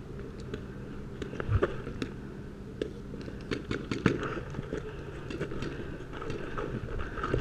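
Irregular sharp pops and clicks of paintball markers firing across the field, over a steady low rumble, with a dull knock about one and a half seconds in.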